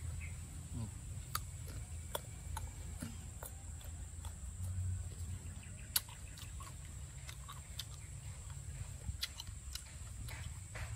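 Chewing and crunching of firm mango slices, with irregular sharp crunch clicks over a low steady rumble and a thin, steady high tone.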